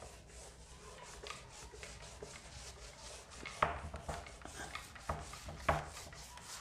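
Bare hand rubbing across a whiteboard in quick repeated strokes, wiping off marker drawings, with a couple of louder strokes about halfway through and again near the end.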